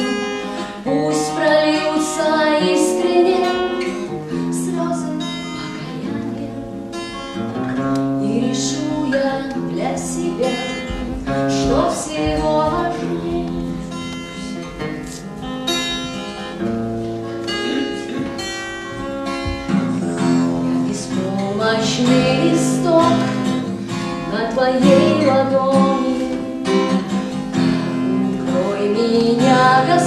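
A woman sings while playing an acoustic guitar.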